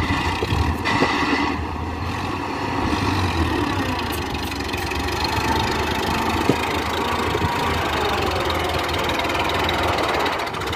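Farm tractor's diesel engine running steadily under load as it hauls a trolley full of sand.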